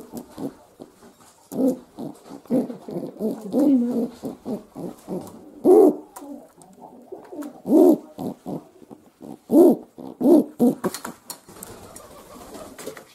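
Feral pigeon cooing in a long run of short, low calls, several of them louder. A few sharp clicks come near the end.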